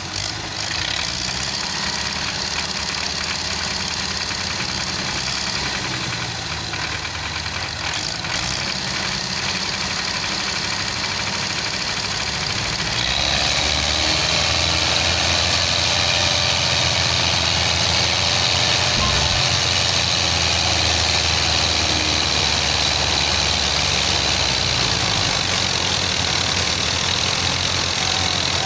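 Diesel engines of a Fiat 640 tractor and a Belarus tractor running hard under heavy load as they try to pull a badly stuck, heavily loaded trolley. About 13 seconds in, the engine sound gets louder and stays up as they are pushed harder.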